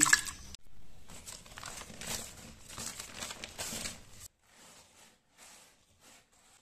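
A hand working soaked rice in a basin of water: irregular wet swishing and rustling of the grains. It drops away sharply a little over four seconds in to a faint rustle of a hand stirring sun-dried pounded black sesame seeds spread on newspaper.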